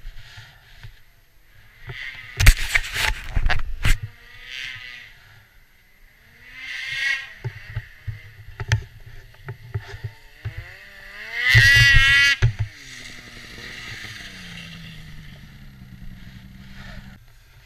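Snowmobile engine revving up and down a few times, its pitch wavering, then dropping to a lower, slowly falling note that stops near the end. Loud rushing bursts of noise a couple of seconds in.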